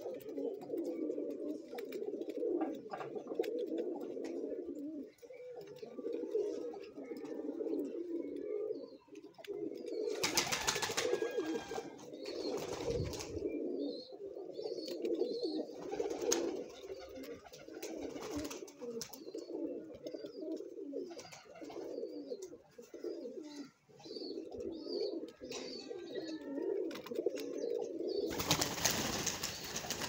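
A flock of domestic pigeons cooing together in a continuous low murmur. About ten seconds in and again near the end there are bursts of rustling noise, the later one from the birds flapping their wings.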